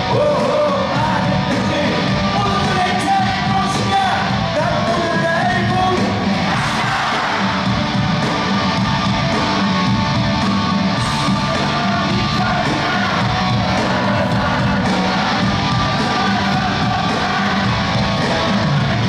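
Live rock music played loud in a large hall, with a band and singing over a steady heavy beat.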